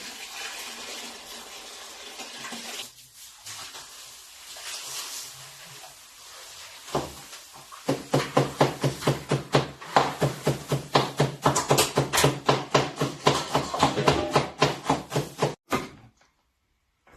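Tap water running briefly, then a kitchen knife chopping quickly and steadily on a cutting board, about four strokes a second, from about eight seconds in.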